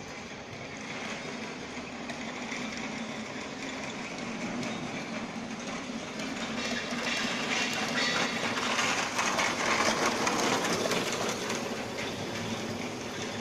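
Veneer-line factory machinery running: a steady mechanical hum with a clattering rattle over it, swelling louder about two-thirds of the way through.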